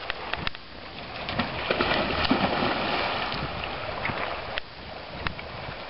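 A dog splashing as it bounds from the shore into lake water and swims out. The splashing is loudest about two to three seconds in.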